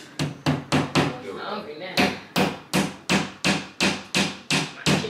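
Hammer tapping a nail into the wall with quick, even strikes, about three a second, pausing briefly about a second in before going on.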